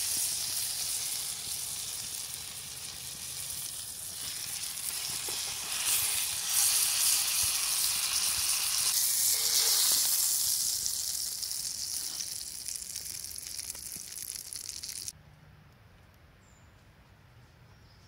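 Pork tenderloin sizzling in butter and oil in a cast-iron skillet, swelling louder about six seconds in as the meat is handled. The sizzle cuts off suddenly about three seconds before the end, leaving only a faint background.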